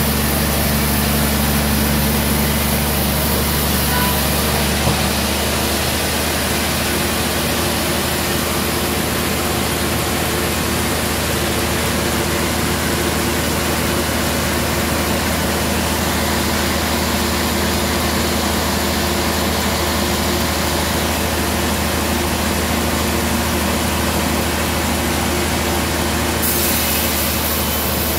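Band sawmill running steadily: a constant low engine hum under an even hiss. A higher hum drops away about five seconds in.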